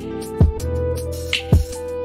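Background instrumental music with a steady beat: sustained notes over a drum hit about once a second.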